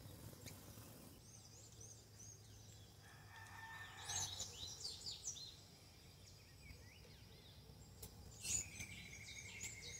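Faint chirping of small songbirds: clusters of quick high chirps about four to five seconds in and again near the end, over a faint low hum.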